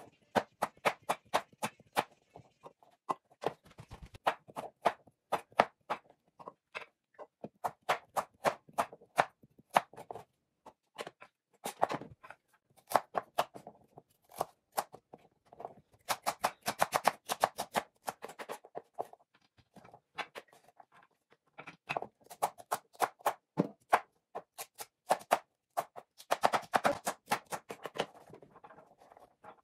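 Kitchen knife chopping carrot and then celery on a wooden cutting board: a string of sharp knocks, some spaced apart and some in quick runs.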